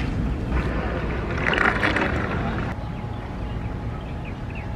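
Small twin-motor RC bait boat running on the water, with wind noise on the microphone; a louder rushing swell comes about a second and a half in, and near three seconds the sound abruptly drops to a quieter, steady hum with a faint whine.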